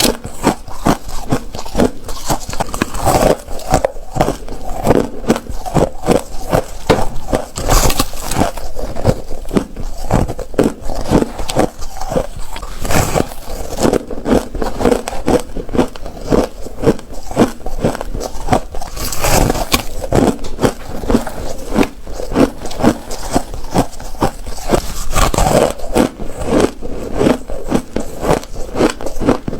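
Ice being bitten and crunched between the teeth, close to the microphone: a continuous run of crisp cracks and crunches, several a second, with an occasional louder bite.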